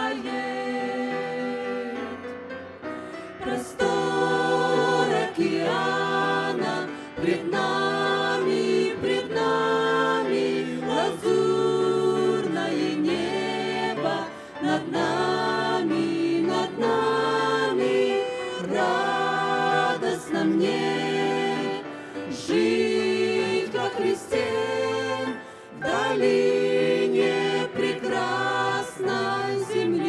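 A mixed vocal group of men and women singing a Russian-language Christian song in harmony into handheld microphones, phrase by phrase with short breaks between.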